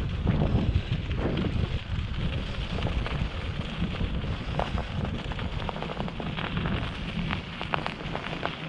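Wind buffeting the microphone of a moving bicycle rider, a steady low rumble, with many short sharp clicks and crackles scattered through it.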